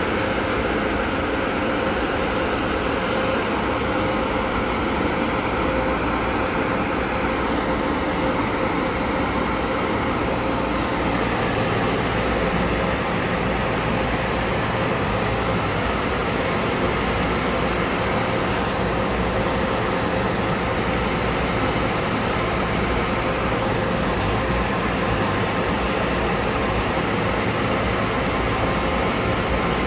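Automatic car wash dryer blowers running: a steady, loud rush of air with a constant hum.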